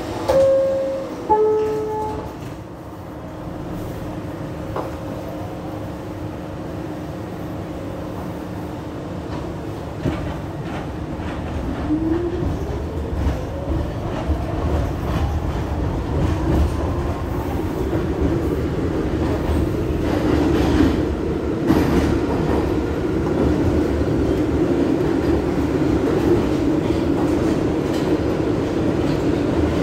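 Kawasaki R62 subway car with General Electric 1257E1 traction motors under Bombardier groupswitch ECAM propulsion: two falling chime tones at the start, a quieter stretch, then a rising motor whine about twelve seconds in as the train pulls away and accelerates. After that it runs steadily, louder, with wheel clatter on the rails.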